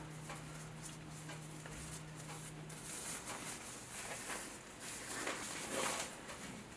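Faint soft rustles and taps of handling close to the microphone, over a steady low hum that stops about three seconds in.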